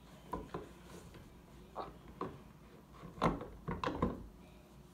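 Fingers tapping and knocking on the wooden rail of a pool table: about eight short, irregular taps, the loudest a little over three seconds in.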